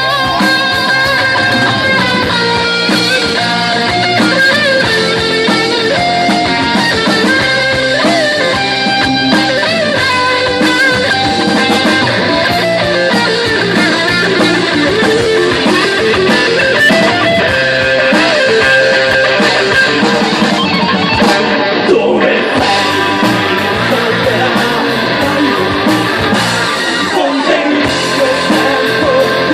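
Live rock band playing an instrumental passage: electric guitar carries a wandering melodic line over bass and a drum kit.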